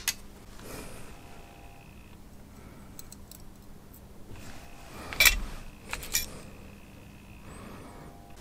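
A few small, sharp metallic clicks as steel tweezers handle the tiny brush spring and clip on an N gauge locomotive motor, the loudest about five seconds in.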